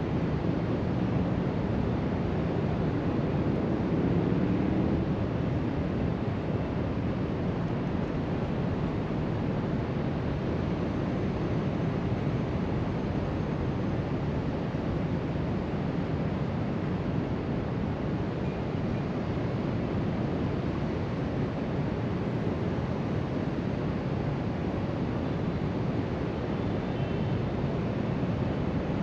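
Ocean surf breaking steadily along a sandy beach, an even wash of noise, with wind blowing across the microphone.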